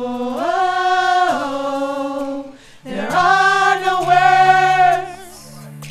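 Women's praise team singing long held notes in harmony, in two phrases with a short break between them about two and a half seconds in; the notes step up and down in pitch within each phrase.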